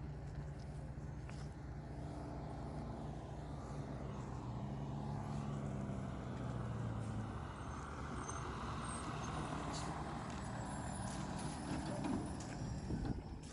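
Fire truck's diesel engine running as it drives up, its pitch shifting as it changes speed, with the noise growing loudest near the end as it comes close.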